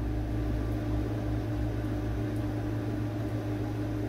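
Steady low mechanical hum with a constant tone, like a fan or air-conditioning unit running in the room, with a few faint small ticks.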